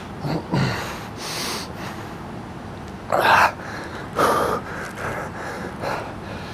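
A man breathing hard with sharp exhalations during leg raises, short puffs of breath about a second apart, the strongest a little past the middle.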